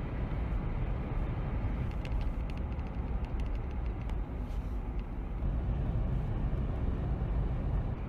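Car driving at road speed: a steady low rumble of engine and tyres, with a few faint clicks about two to three seconds in.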